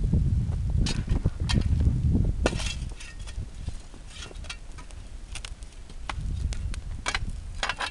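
Bonfire of a burning couch crackling, with sharp, irregular pops scattered throughout. A strong low rumble underlies the first two and a half seconds, then drops away.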